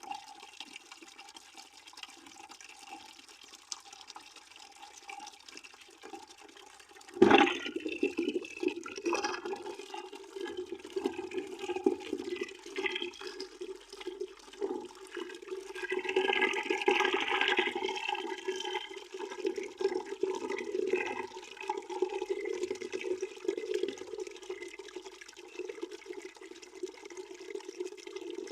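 Water pouring into a bucket, a steady splashing stream with a steady low tone under it. About seven seconds in it suddenly gets louder and stays so, swelling again for a couple of seconds around the middle.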